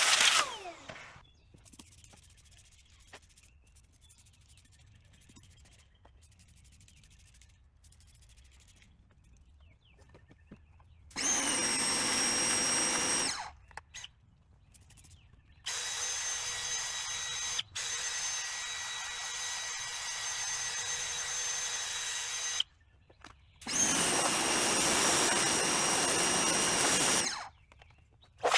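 An electric power-tool motor, used in cleaning a carpet floor mat, winds down just after the start. It then runs in three separate bursts with a steady whine: a short one about eleven seconds in, a longer one of about seven seconds, and another of about three and a half seconds. Each burst starts and stops abruptly.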